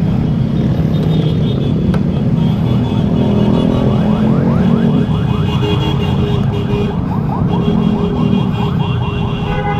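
Ducati motorcycle engine idling steadily.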